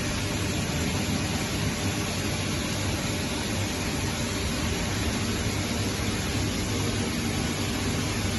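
Steady machinery hum under an even hiss, holding at one level without change.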